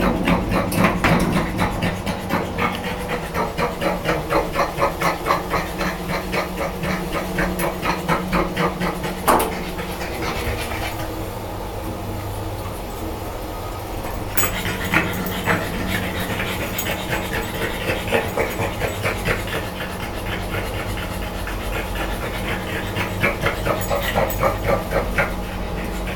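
French bulldog panting hard in quick, even breaths, about three a second, pausing for a few seconds in the middle. There is a single sharp knock about nine seconds in, and a steady low hum underneath.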